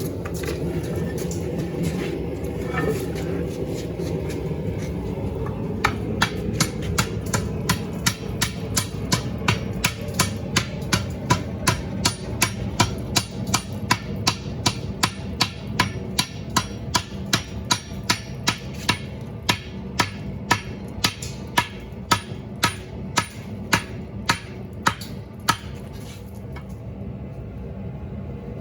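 Forging: a steady run of regular hammer blows on a hot 1 x 2 inch solid steel bar, about two or three a second, each a sharp ringing strike. They start about six seconds in and die away near the end, over a steady low machine hum.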